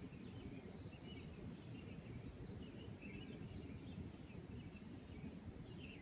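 Faint, steady low background rumble with scattered faint, high chirps of birds throughout.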